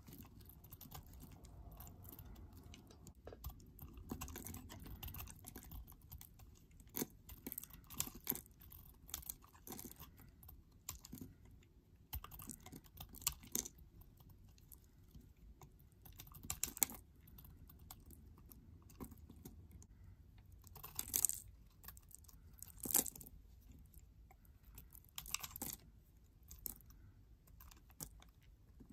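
Snap-off utility knife blade shaving and carving a bar of soap: a run of crisp, crumbly scrapes at an irregular pace, with a few louder cuts now and then.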